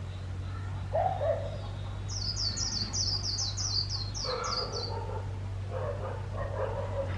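Decoy white-eye singing a quick run of about a dozen high, down-slurred notes, its 'líu' warble, starting about two seconds in and lasting about three seconds. Lower-pitched, rougher calls come about a second in and again in the second half, over a steady low hum.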